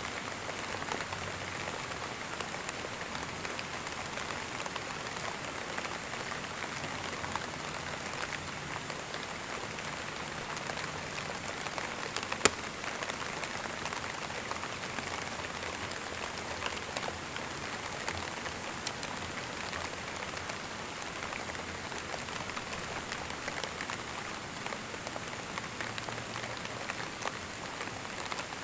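Steady rain falling on a surface, with many fine individual drops ticking through the hiss. One sharp, louder click stands out about twelve seconds in.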